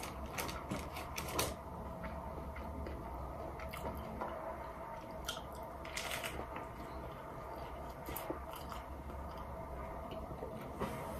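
Close-mic chewing and crunching of a soft tortilla wrapped around a crunchy hard taco shell: crisp crackles of the shell breaking, with a cluster in the first second and a half, a fresh bite about six seconds in, and softer chewing in between.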